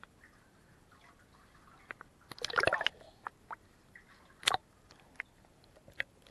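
Lake water splashing and dripping around a camera held at the waterline, with scattered sharp drips and clicks. There is a denser burst of splashing about two and a half seconds in and one loud splash about four and a half seconds in.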